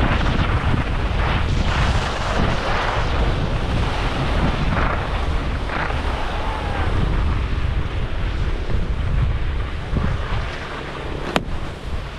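Wind buffeting the microphone of a GoPro worn while skiing, over the hiss and scrape of skis on packed snow that swells in a string of whooshes in the first half. A single sharp click comes near the end.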